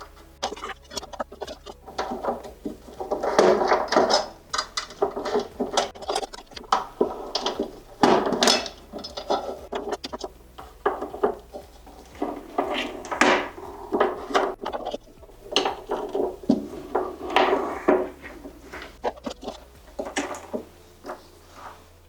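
Irregular clicking, knocking and clattering of tools and hard electrical parts being handled and set down, some strikes ringing briefly.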